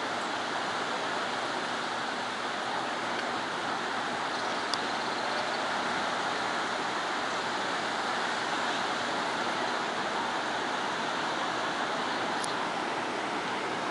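Pacific Ocean surf washing steadily onto a beach, with two faint short clicks about five and twelve seconds in.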